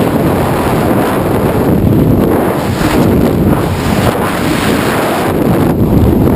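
Freefall wind buffeting a wrist-mounted camera's microphone during a tandem skydive: a loud, steady, deep rushing noise with no break.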